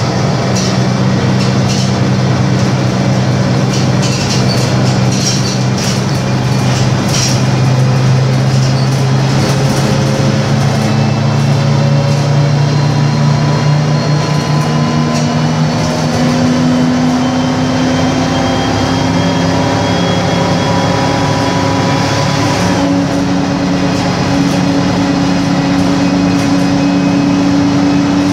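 Ikarus 260.46 city bus under way: its Rába D10 UTS-155 diesel engine and Voith Diwa automatic gearbox run steadily, then the note climbs gradually as the bus gathers speed, with an abrupt change in the sound about three-quarters of the way through. Light rattles come in near the start.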